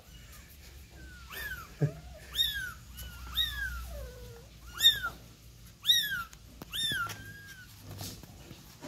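Young kittens mewing: a string of about ten short, high cries, each rising and then falling in pitch, coming every half second to a second, with a couple of lower, falling mews in between.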